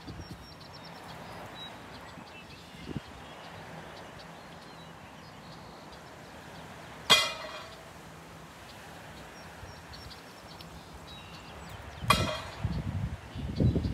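Quiet outdoor ambience with a steady low hiss, broken twice by a short, sharp sound with a ringing tone: once about halfway through and again near the end. The second is followed by low rumbling.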